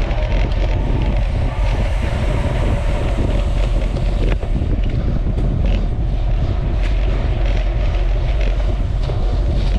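Heavy wind noise on the microphone: a steady low rumble with a broad hiss over it and a few faint clicks.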